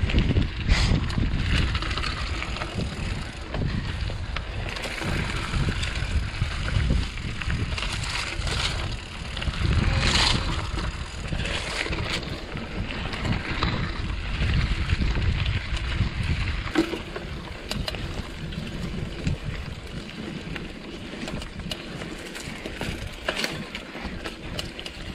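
Mountain bike riding over a rough dirt singletrack: tyres crunching on dirt and the bike rattling and clicking over bumps, with wind rumbling on the microphone. The wind rumble drops away about two-thirds of the way through.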